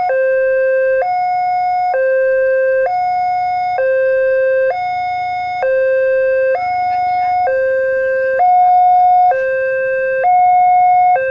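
Railway level-crossing warning alarm: an electronic two-tone signal switching back and forth between a lower and a higher tone, each held just under a second, sounding because the crossing is active for an approaching train.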